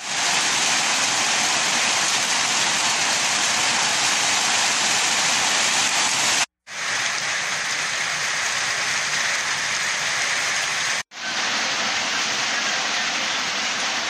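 Steady rainfall hissing on leaves and ground. The sound cuts out for a split second twice, about six and a half and eleven seconds in, where clips are joined.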